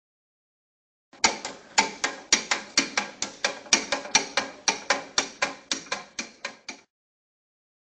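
A kinetic sculpture's mechanism clicking fast and evenly, about four sharp clicks a second, each with a brief ringing. The clicks start about a second in, grow softer toward the end and stop shortly before it.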